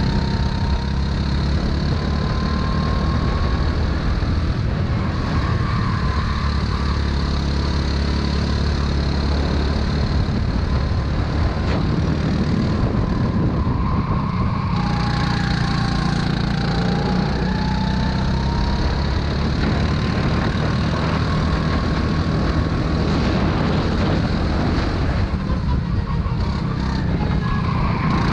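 Racing kart engine running hard at speed, close up from a camera mounted on the kart. Its note climbs slowly as the kart speeds up, then drops back as it slows, several times over.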